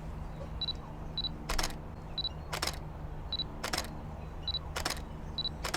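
A Canon 5D Mark IV DSLR taking single shots: each short high autofocus-confirmation beep is followed a moment later by the shutter's double clack. This happens five times, about once a second.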